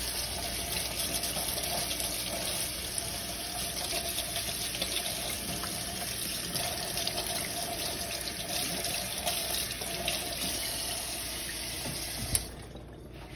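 Kitchen faucet running steadily into a stainless steel sink while a soft pretzel is wetted under the stream. The water is shut off with a click near the end.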